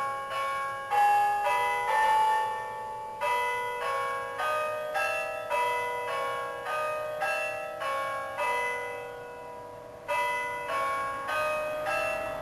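Carillon bells from the Verdin Company playing a slow melody, one note struck about every half second to second, each ringing on under the next. The ringing dies down briefly before a strong note is struck near the end.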